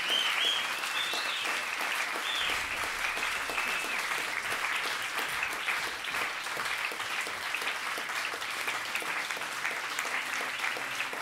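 Audience applauding steadily, a dense patter of many hands clapping. A few high calls from the crowd ring out over it in the first few seconds.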